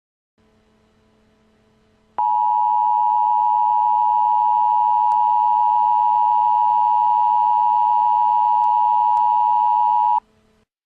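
Emergency Alert System attention signal: the steady two-tone alarm (853 and 960 Hz together) starts abruptly about two seconds in, after a faint hiss, and is held for about eight seconds before cutting off sharply.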